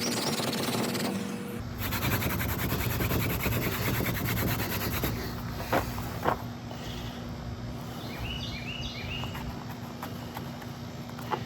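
Steady rough rubbing and rustling, with two sharp clicks around the middle and a bird chirping several times in quick succession near the end.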